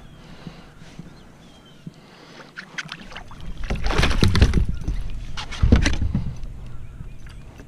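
A hooked largemouth bass splashing and thrashing at the surface as it is netted and swung aboard a kayak, loudest about four seconds in, with a second burst near six seconds as it flops onto the kayak's deck.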